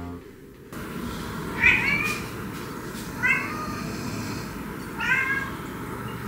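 A calico cat meowing three times, short calls about a second and a half apart, over a low steady background hiss.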